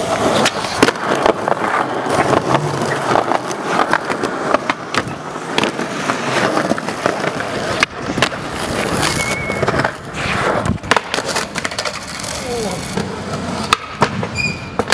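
Skateboard wheels rolling on concrete, with repeated sharp clacks as the tail pops and the board slaps down on landings and falls.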